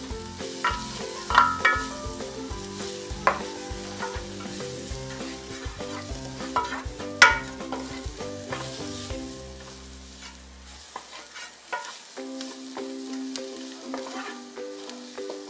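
Wooden spatula stirring and scraping sliced onions and ground spices frying in oil in a nonstick pan, with a light sizzle and occasional sharp knocks of the spatula against the pan, the sharpest about seven seconds in.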